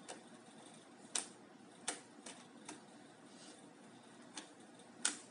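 Sharp, irregular clicks of a pry tool working the keyboard latches of a Lenovo Yoga 13 laptop as the keyboard is unlocked, about seven clicks over five seconds.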